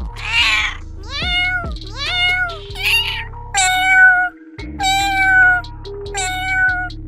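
A domestic cat meowing over and over, about seven meows roughly a second apart, with background music underneath.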